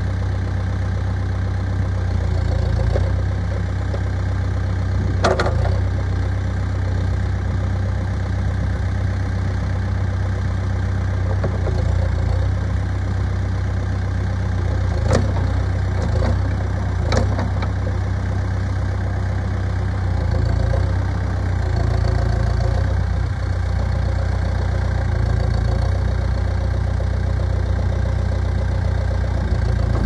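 Case 580N backhoe loader's 90 hp turbo diesel engine running steadily, with a few sharp knocks about five seconds in and again around fifteen to seventeen seconds.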